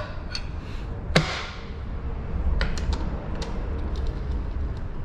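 Scattered light metallic clicks and taps as bolts are run in and snugged on a motorcycle engine's stator cover, with one sharper knock about a second in.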